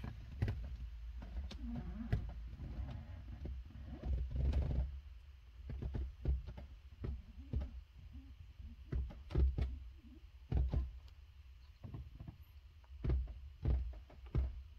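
Handling noise from a handheld phone being moved about: a low rumble with scattered soft knocks and taps.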